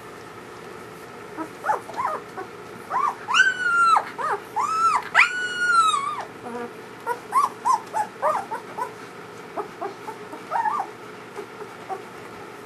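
Newborn German Shepherd puppies whimpering and squealing: a string of short, arching cries, with two longer, louder squeals a few seconds in, then shorter cries thinning out toward the end.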